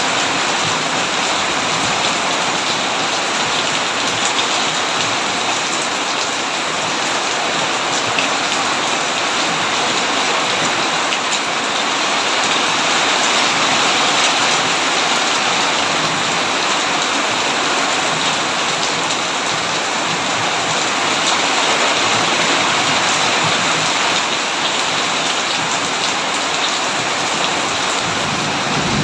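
Heavy rain falling steadily on a tin roof, a dense hiss with many individual drops ticking through it.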